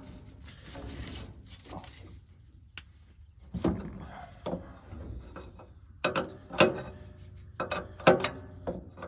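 Wrenches working on the excavator's hydraulic hose fittings to break them loose: a string of sharp metal clanks and clicks, several ringing briefly, coming thicker and louder in the second half.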